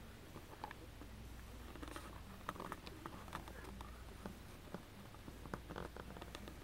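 Faint handling noise: scattered small clicks, ticks and rustles, busiest a few seconds in and again near the end, over a low steady hum.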